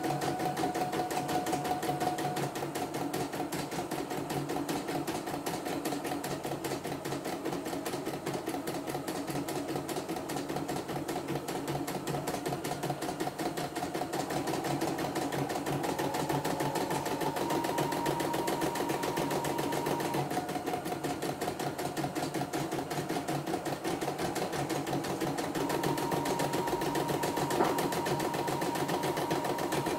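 CNY E960 computerised embroidery machine test-stitching a design after repair, the needle running at a fast, even rate while the embroidery arm's motor whine shifts pitch a few times as the hoop moves. A single sharp click sounds near the end.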